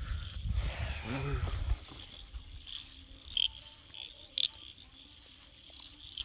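Wind buffeting the microphone for the first couple of seconds. After that comes a faint, steady high chirring with a few sharper chirps near the middle: early-morning birds and insects.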